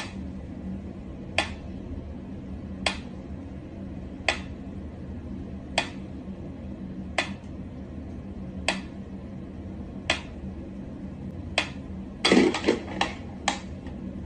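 Mechanical pendulum metronome ticking slowly and evenly, about one sharp tick every second and a half. Near the end a short flurry of quicker knocks and clatter breaks the beat.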